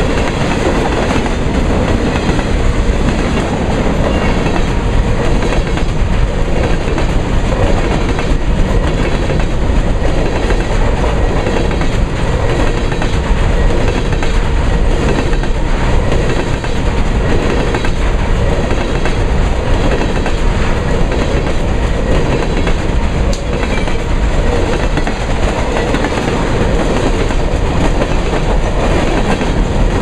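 Freight cars rolling past close by: a steady rumble of steel wheels on the rails, with the wheels clacking on the track.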